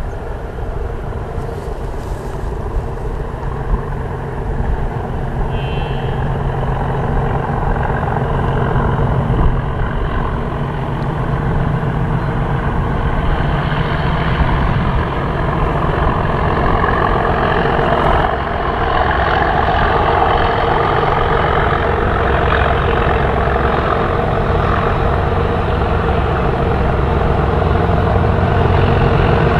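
Two Class 37 diesel locomotives, 37 411 and 37 416, working in tandem on a freight train. Their English Electric V12 diesel engines run steadily and grow louder as the locomotives approach.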